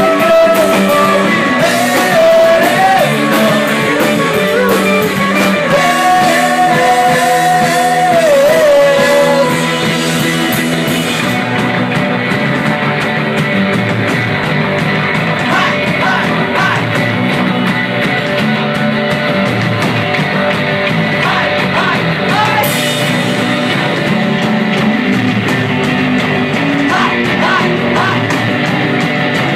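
Live rock band playing, with drum kit, guitar and singing. A wavering lead line stands out for the first nine seconds or so, after which the music gets a little quieter and duller.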